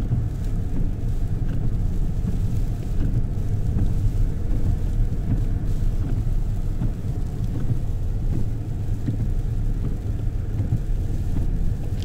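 Vehicle driving slowly over a snow-covered track, heard from inside the cabin: a steady low rumble of engine and tyres on snow.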